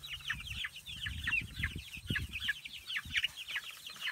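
A flock of young chicks peeping continuously, many short downward-sliding chirps overlapping. Low rumbling thumps run underneath for the first two and a half seconds and come once more about three seconds in.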